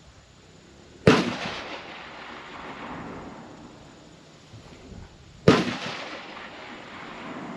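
Two loud gunshots about four and a half seconds apart, each followed by an echo that fades over about a second.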